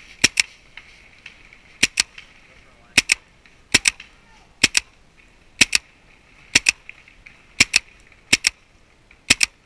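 Paintball markers firing: sharp shots, mostly in quick pairs, roughly one pair a second.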